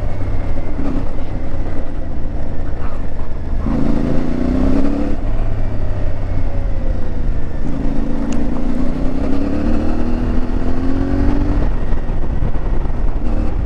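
CFMoto 450MT's parallel-twin engine running on the move over a heavy low rumble. Its note climbs in pitch as it accelerates, briefly about four seconds in and again for a longer stretch from about eight seconds.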